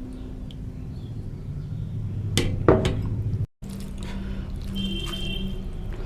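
Dishes clinking as eating begins, with two sharp knocks about two and a half seconds in, over a low steady hum. The sound cuts out for a moment just after.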